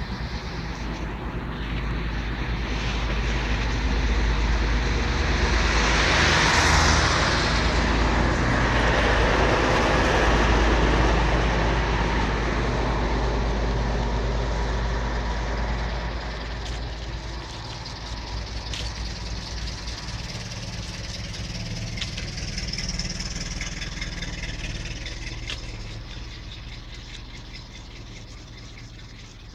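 A motor vehicle passing by: a noisy rumble that swells to its loudest about a third of the way in, then fades slowly away. A few faint clicks come in the later part.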